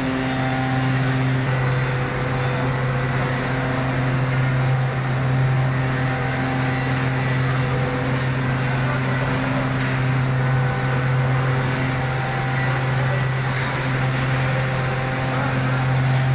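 Steady mechanical drone of a running engine or motor: a strong low hum with a few faint steady higher tones, holding an even level.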